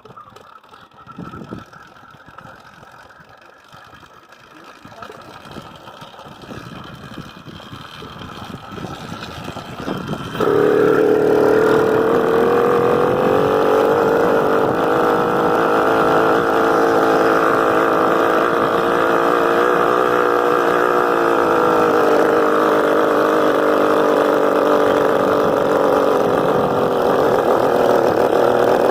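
Honda CG 125's single-cylinder four-stroke motorcycle engine running steadily and loudly, coming in suddenly about ten seconds in after a faint, quiet stretch.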